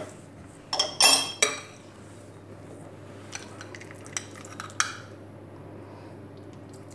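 Metal spoon clinking against ceramic dishes: a quick cluster of sharp, ringing clinks about a second in, then a few lighter taps between three and five seconds.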